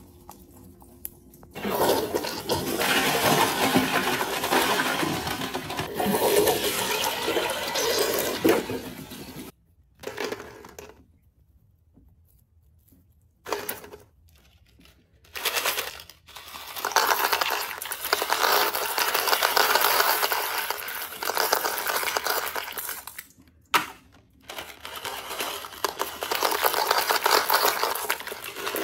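Toilet flushing, long spells of rushing water that stop and start, with short clatters of small hard items dropping into the bowl.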